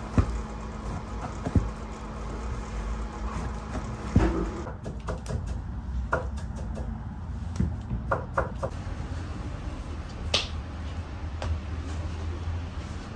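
Scattered knocks and clicks of kitchen work, as a knife cuts meat on a wooden board and pieces of dough are handled on a metal table, over a steady low hum of room noise.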